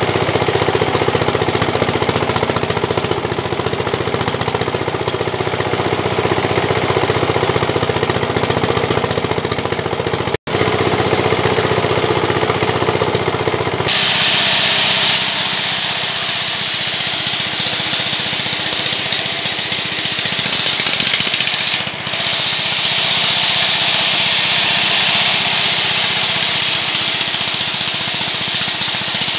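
Band sawmill running, its band saw blade cutting through timber: a loud, steady mechanical noise. It cuts out for an instant about ten seconds in, and from about fourteen seconds on the sound is brighter and hissier.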